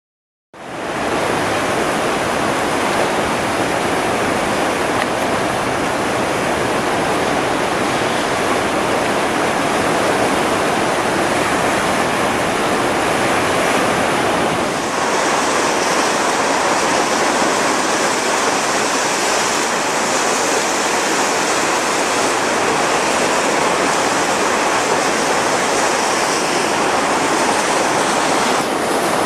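Rain-swollen rapids rushing and churning at close range: a loud, steady noise of turbulent water. It starts suddenly after a moment of silence, and about halfway through there is a brief dip, after which the rush sounds hissier.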